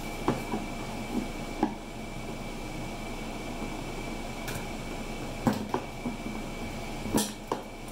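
Light metal handling knocks and clicks, about five scattered sharp ones with the loudest past the middle and near the end, as a screwdriver is worked in under a Kubota G4200 tractor's sheet-metal fuel tank, over a steady faint hum.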